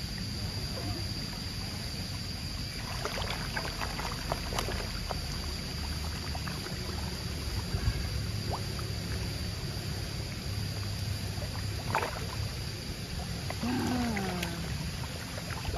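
A mass of catfish churning and slapping the water at the surface while feeding, a continuous wet churn with scattered sharper splashes.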